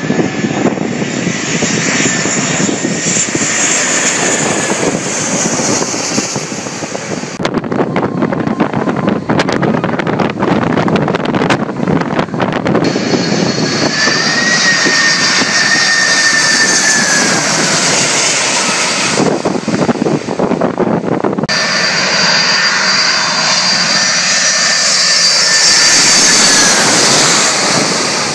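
Large jet airliners, among them a four-engine Boeing 747, passing low overhead on final approach: engines running with a steady loud rush and a high whine. There are several separate passes with abrupt changes between them, and the sound is loudest near the end.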